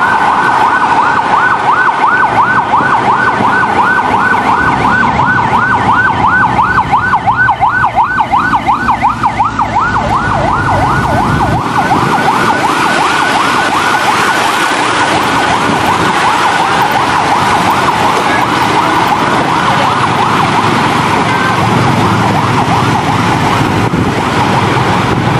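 Emergency vehicle siren sounding in a fast warble, the pitch going up and down several times a second, over road traffic noise. About halfway through, the warble turns into a steadier tone.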